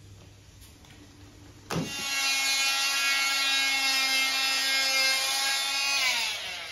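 Corded oscillating multi-tool switched on suddenly a little under two seconds in and running at a steady high buzz as it cuts through the plaster corner. Near the end it is switched off and its pitch falls as it winds down.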